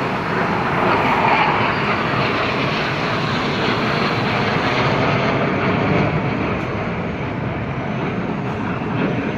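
Hawk jet trainers of an aerobatic display team flying past, their jet engines making a loud, steady noise with a slight swell about a second in.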